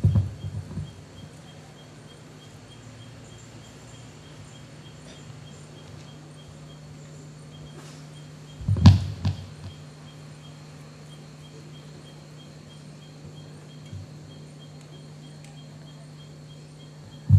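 Steady low electrical hum from an open microphone, with a few dull thumps, the loudest cluster about nine seconds in.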